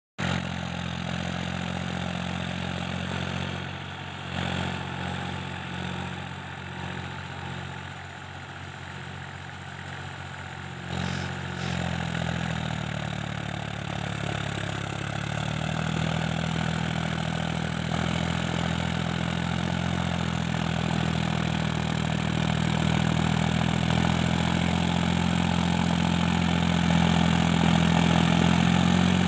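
Diesel engine of a 47 hp four-wheel-drive tractor running steadily as it pulls a rear-mounted tiller through dry soil. It dips a little about four to eleven seconds in, shifts pitch around twelve to fifteen seconds in, then grows steadily louder as the tractor comes closer.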